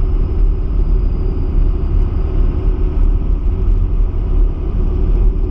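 Truck engine and road noise heard from inside the cab, a steady low rumble while driving along.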